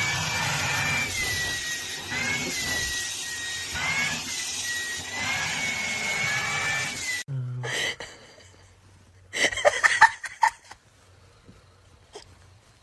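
A small motor runs with a high whine and a hiss, its pitch wavering a little, then cuts off suddenly about seven seconds in; a few short clattering sounds follow.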